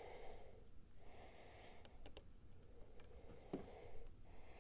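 Faint breathing close to the microphone, one breath about every second, with a few small clicks as wires and terminals are fitted to a drum switch.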